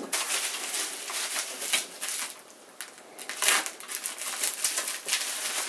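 Plastic bubble wrap crinkling and rustling as it is pulled off a small foot switch, with a brief quieter lull midway.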